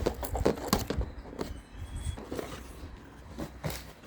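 Packaging being handled during an unboxing: irregular rustling, crinkling and small clicks as the box and its contents are opened and moved about.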